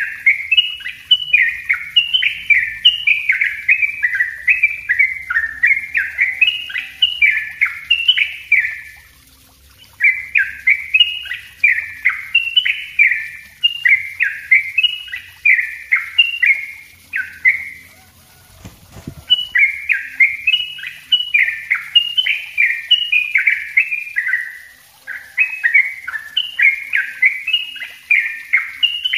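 Yellow-vented bulbul (trucuk) singing its rapid, dense 'ropel' song: long runs of quick, falling notes, broken by short pauses about nine and eighteen seconds in.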